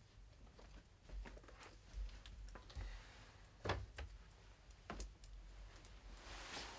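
A person moving about a small room and handling things on a dresser: scattered light knocks and clicks, the sharpest about three and a half seconds in and another at five seconds, then a brief rustle near the end.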